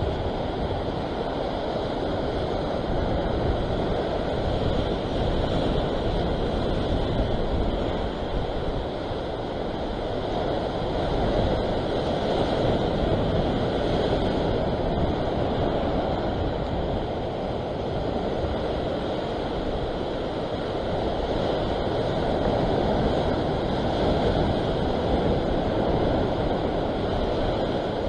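Sea surf washing and foaming against the rocks below, with wind on the microphone. The wash swells and eases in slow surges.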